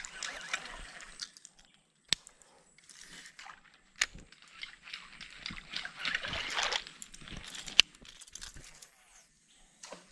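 Water sloshing and splashing around a small boat, in two spells, with three sharp knocks in between, the loudest near the end.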